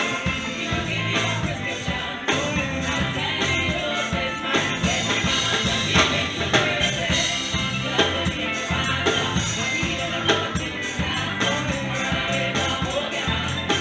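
Live church praise band playing an upbeat worship song on drum kit and guitars, with voices singing along.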